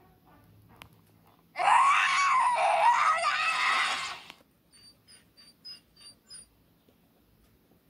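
A person's voice screaming loudly for about two and a half seconds, its pitch wavering. A quick run of six short high-pitched chirps follows.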